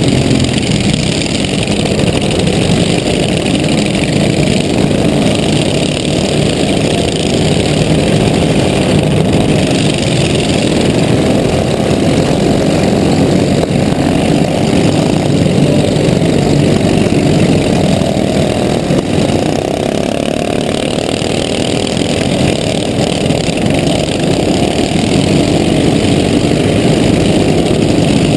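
Riding lawn mower engine running steadily close by, with other mowers' engines running around it; a loud, even engine drone with no clear crashes standing out.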